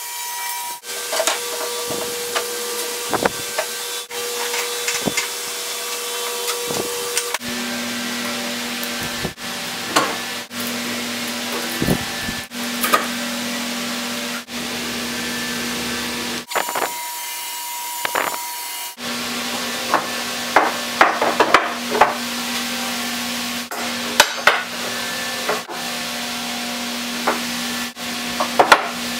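Wooden boards and steel clamps knocking, clicking and rattling as they are handled during a board glue-up. Behind them runs a steady workshop hum and hiss whose pitch jumps abruptly several times where short clips are spliced together.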